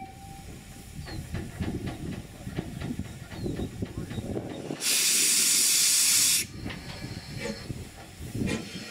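Russell, a 1906 Hunslet 2-6-2T narrow-gauge steam locomotive, standing at the platform with a low background rumble. About five seconds in, a loud burst of steam hisses for about a second and a half and then cuts off sharply.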